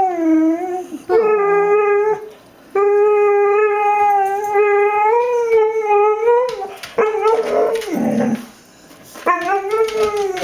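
A Xoloitzcuintli (Mexican hairless dog) howls in a string of about five drawn-out howls, each mostly held on one pitch. The longest, in the middle, lasts about four seconds, and one near the end slides down. She is begging for chicken.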